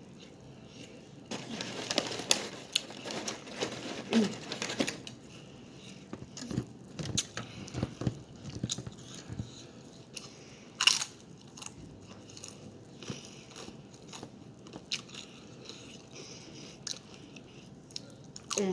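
Close-up eating sounds: a person biting and chewing a burrito with wet smacking, with crunchier bites and crinkling now and then, one sharp crackle about halfway.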